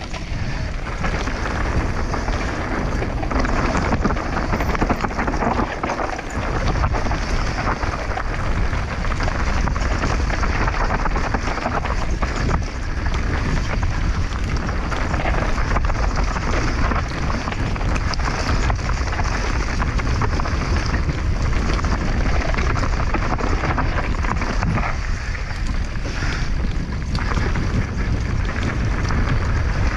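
Wind buffeting the microphone over the steady rushing and rattle of a mountain bike riding down a dirt trail.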